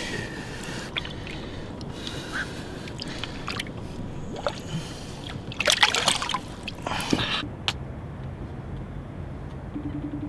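Water splashing and sloshing at the side of an inflatable boat as a small wels catfish is released back into the lake, with the loudest splashes about six and seven seconds in.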